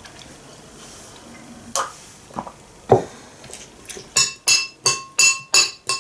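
A metal spoon clinking against a glass bowl, a quick run of ringing clinks about three a second from about four seconds in, as fruit salad is scooped. Before it, a single knock about halfway through as a mug is set down on the table.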